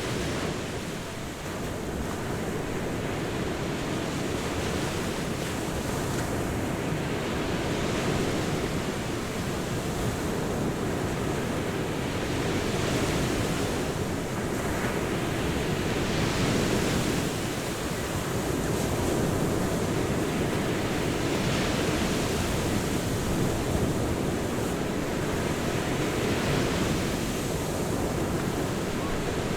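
Ocean surf breaking on a beach, a continuous wash that swells every three to four seconds as waves come in.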